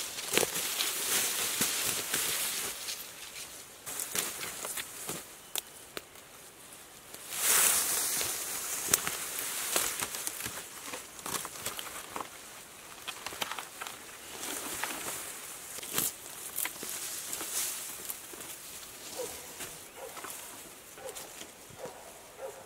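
Dry bamboo leaf litter rustling and crunching underfoot and as plants are handled, with scattered snaps and crackles. A louder burst of rustling comes about seven seconds in.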